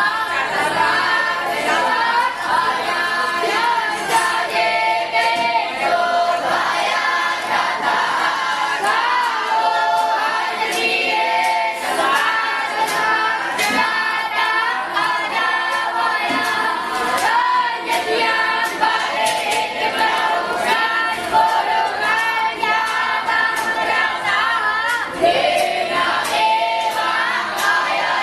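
A group of voices singing together in unison, a choir-like chant that goes on without a break.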